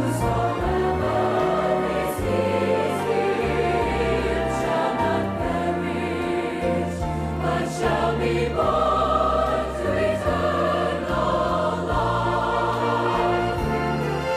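Gospel choir singing with orchestral accompaniment, many voices holding sustained notes over a steady bass.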